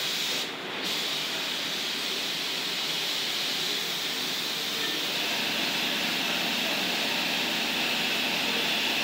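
Compressed-air gravity-feed spray gun hissing steadily as it sprays a coat onto a clay flower pot, with a short break a little over half a second in.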